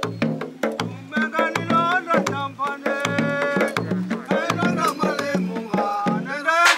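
Giriama wooden hand drums beaten in a steady beat, about three strokes every two seconds. From about a second in, voices sing a chant over them.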